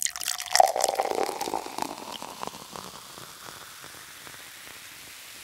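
Intro sound effect: a sudden crackling, rustling whoosh that fades over about three seconds into a steady faint hiss.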